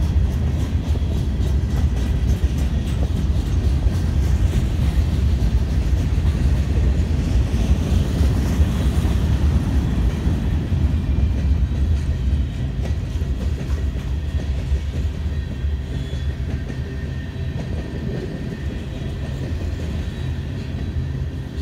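Freight cars rolling past: a steady low rumble of steel wheels on the rails with clickety-clack over the rail joints, fading slightly over the last several seconds as the final boxcars and tank cars go by.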